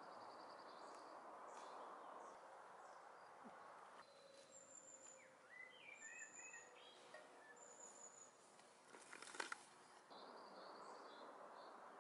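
Faint woodland ambience under a soft steady hiss. Small birds give short high whistles and chirps about halfway through, and a brief cluster of clicks comes near the end.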